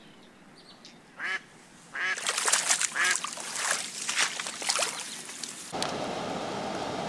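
A live decoy hen duck quacking: one short quack about a second in, then a rapid run of loud quacks that cuts off abruptly near the end, followed by a steady hiss.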